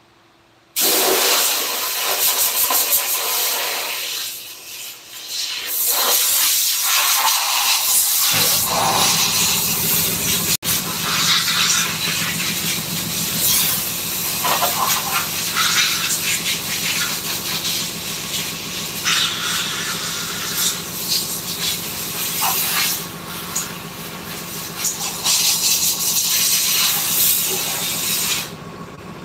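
Loud steady hissing noise that starts suddenly about a second in, with a machine's motor hum joining about eight seconds in; both stop suddenly near the end.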